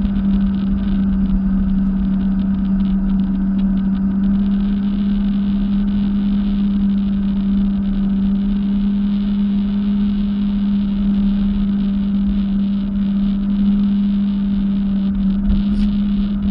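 Jet ski engine running with a loud, steady drone that holds one pitch throughout, over a wash of noise.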